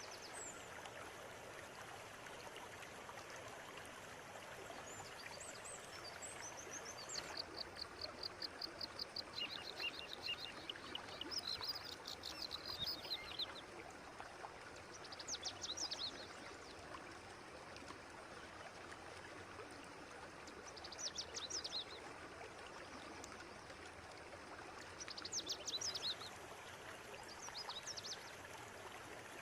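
River water flowing steadily, with a songbird singing short phrases of rapid repeated high notes at intervals: a long run of song about a third of the way in, then shorter bursts several seconds apart.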